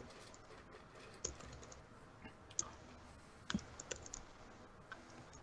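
Faint, scattered clicks of a computer keyboard and mouse, a few isolated taps with short pauses between them.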